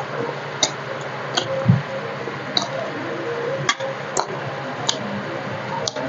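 Close-miked chewing of roti and arbi curry: wet mouth clicks and lip smacks, about seven sharp clicks over six seconds, with one soft low thump near the start, over a steady low hum.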